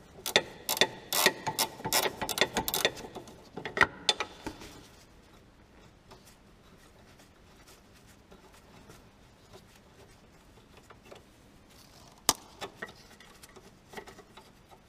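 Ratchet wrench clicking in quick, uneven runs while the nut on a Fiat Bravo's anti-roll bar drop link is turned. It stops after about four seconds, with one more sharp click near the end.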